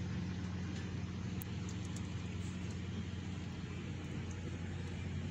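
Steady low mechanical hum that holds one pitch throughout, with a few faint clicks from parts being handled.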